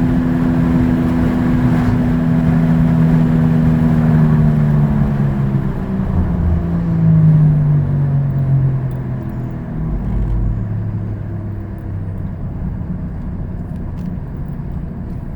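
Worn front-left wheel bearing humming inside the cabin of a quarter-million-mile Ford Escape as it coasts off the accelerator. The hum slides down in pitch and fades as the car slows, as a bad wheel bearing's noise follows road speed.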